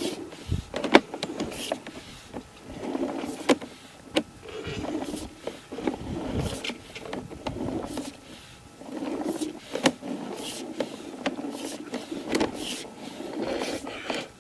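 Sewer inspection camera on its push cable scraping and knocking along inside the pipe, with irregular sharp clicks and rustling scrapes.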